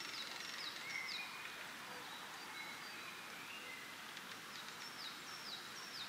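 Songbirds singing in a spring forest: a repeated series of short high notes that each drop in pitch, a group at the start and another near the end, with a few lower whistled notes in between. Under them runs a steady hiss of wind in the leaves.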